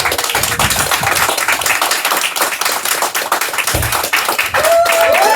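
A group applauding, many hands clapping steadily. Near the end, voices start cheering over the clapping.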